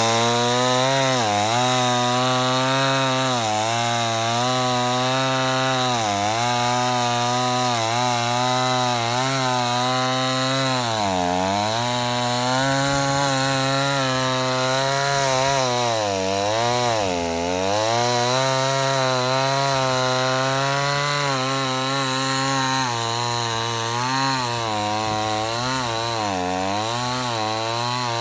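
Chainsaw running at high revs while cutting through a log, its engine pitch dipping every second or two as the chain bites and loads it. There are deeper bog-downs about a third and about two-thirds of the way through.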